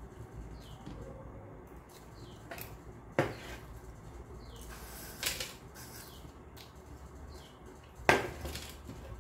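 Stainless steel plates clanking against the table a few times, the loudest clank near the end as a plate is set down. Soft sounds of eating rice by hand come in between.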